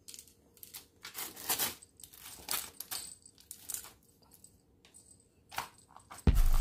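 A small plastic toy clicking and skittering on a tiled floor as a cat bats it, then scratching and rustling as the cat paws under a woven floor mat. Music comes back in near the end.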